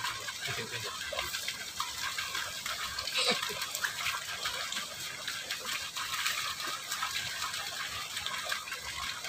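Water rushing steadily along a small concrete irrigation ditch, with one short louder sound about three seconds in.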